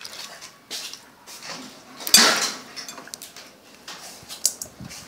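Crab shells clicking and clattering against a ceramic bowl as hands pull apart pickled crabs, with wet squelches of the sauce. The loudest clatter comes about two seconds in.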